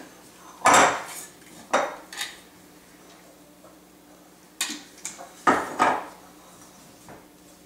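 Glass jar of flour and its metal screw lid clinking and knocking against the countertop as the lid comes off, flour is poured out and the jar is set down. About six sharp clinks with quiet between, the loudest about a second in and again near six seconds.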